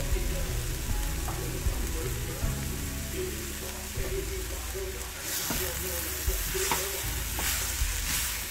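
Chopped bitter gourd and onion sizzling in a clay pot on the stove. About five seconds in, a wooden spatula starts stirring them, scraping against the pot, and the sizzle grows louder.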